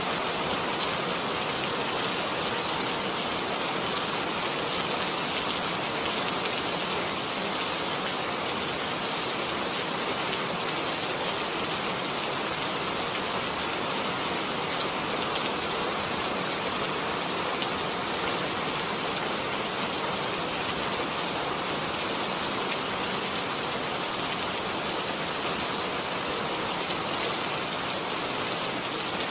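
Heavy rain falling steadily on wet pavement and parked cars: an even hiss with scattered sharper drop splashes.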